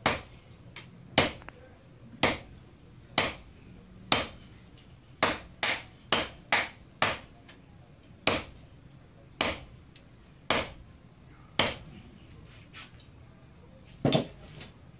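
Hand forging: a sledgehammer and hand hammer striking red-hot steel on an anvil, sharp blows about once a second, with a quicker run of five blows about five seconds in and a final blow near the end after a short pause. Fainter, lighter taps fall between the heavy blows.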